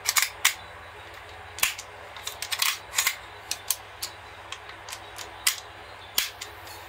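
Steel slide and hammer of a WE M1911A1 gas blowback airsoft pistol being worked by hand with the magazine out: a dozen or so sharp, irregular metallic clicks and clacks as the slide is drawn back and snaps forward. The slide runs smooth.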